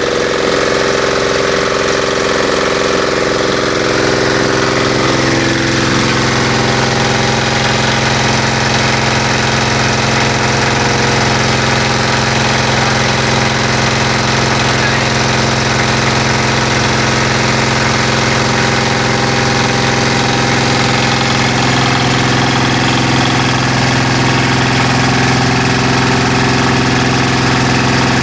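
Animal-feed pellet mill running steadily with a loud, even mechanical drone.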